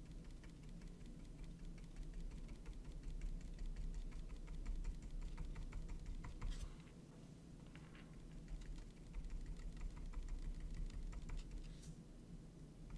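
Small paintbrush dabbing and stroking paint onto a tiny textured canvas: a quick run of light taps, several a second, with a few louder brushier strokes in between.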